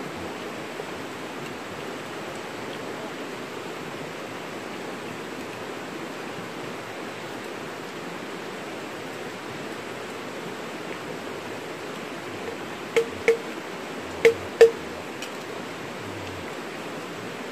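Steady rush of flowing river water. About two-thirds of the way through come four short sharp clicks in two quick pairs.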